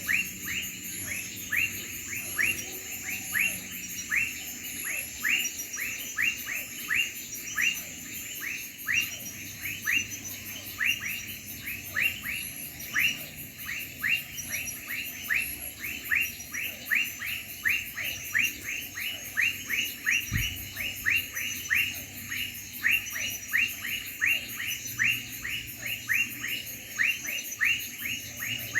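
Crickets chirping in a night chorus: a continuous high pulsing trill with a louder short chirp repeating about twice a second.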